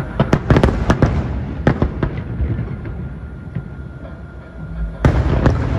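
Aerial firework shells bursting in a rapid volley of sharp bangs for about two seconds, then a rumbling lull, then another cluster of bangs near the end.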